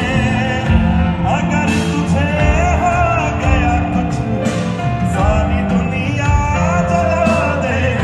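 A Bollywood song sung by a male vocalist, his melody wavering and ornamented, over instrumental backing with a steady beat.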